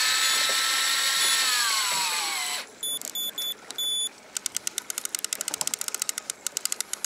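Electric fishing reel winding in line: a steady motor whine that falls in pitch and stops about two and a half seconds in. A few short high beeps follow, then a fast run of ratchet-like clicks, several a second, through the rest.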